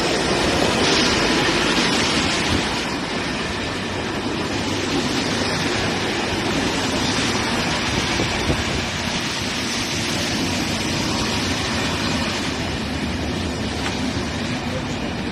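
Corail Intercités passenger coaches rolling past close by as the train arrives at the platform: a steady, fairly loud rumble of wheels on rail.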